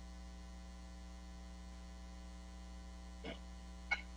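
Steady low electrical mains hum with faint evenly spaced overtones. Two faint short sounds come about three and four seconds in.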